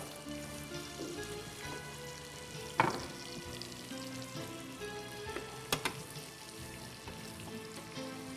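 Breaded fish cutlets frying in oil in a pan, a steady sizzle, with a couple of light knocks about three and six seconds in as they are turned with tongs.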